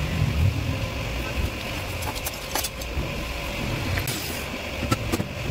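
Steady low workshop rumble with scattered light metallic clicks and clinks as the stainless steel tube frame and tools are handled on the bench.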